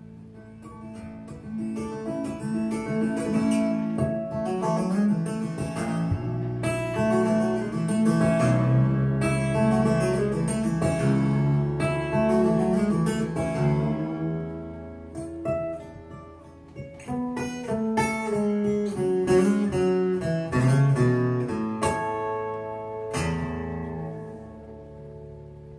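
Solo acoustic guitar instrumental break: quick fingerpicked notes and chords with crisp attacks, easing off about two-thirds of the way in and dropping quieter again near the end.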